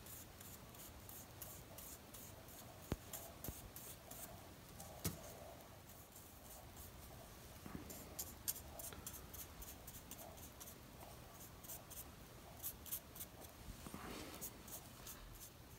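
Faint scratching of a small paintbrush stroking paint onto a tube, with a few soft clicks.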